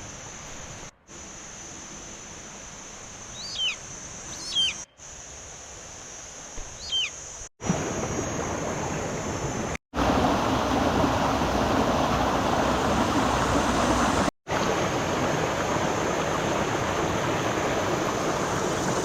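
Rushing water of a forest waterfall, in several short clips cut together: quieter at first with a few short high chirps, then much louder and fuller from about eight seconds in.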